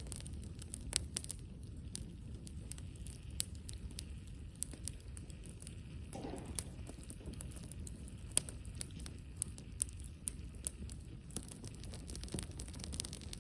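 Wood campfire crackling: irregular sharp pops and snaps over a low, steady background of the burning fire, with a brief downward-sliding tone about six seconds in.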